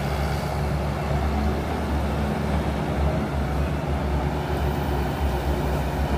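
Crawler excavator's diesel engine running steadily under working load as the machine digs and swings, a continuous low drone.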